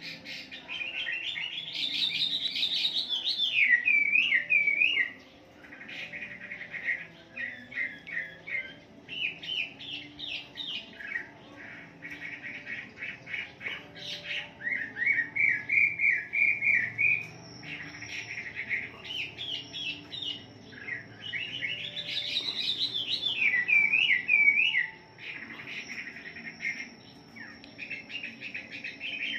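Chinese hwamei (laughingthrush) singing a loud, varied song of rapid whistled phrases, slurred notes and fast trills, with a couple of short pauses between bouts.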